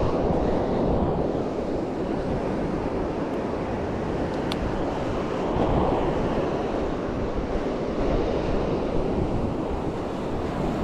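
Ocean surf washing in steadily, swelling a little about halfway through, with wind rumbling on the microphone.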